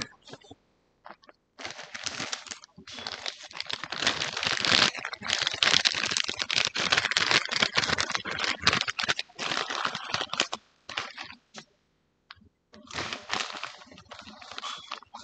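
Close-miked ASMR sounds: dense, rapid crackling and clicking from objects handled right at the microphone. They come in long runs, broken by a short pause about a second in and another near eleven seconds in.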